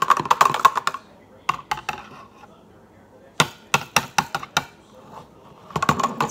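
Wire whisk clinking against the sides of a glass measuring cup while whisking, quick runs of clicks with short pauses between.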